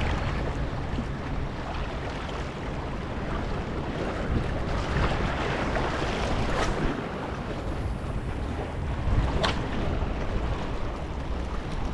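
Wind buffeting the microphone over the wash of choppy water, with two brief sharp clicks, one about halfway through and one later.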